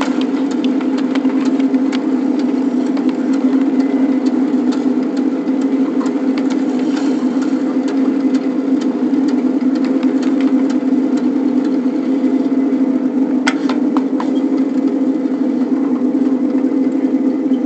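A ride-on 7.5-inch gauge backyard train running along its track: a steady drone with scattered short clicks, and a brief cluster of sharper clicks about thirteen seconds in.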